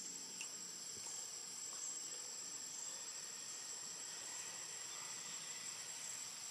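Steady, high-pitched insect chorus, a continuous shrill drone that holds an even level throughout.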